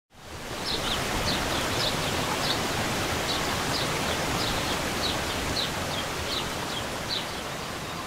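Steady rush of a waterfall, fading in over the first half second. A bird calls over it in short high chirps, repeated a little more than once a second.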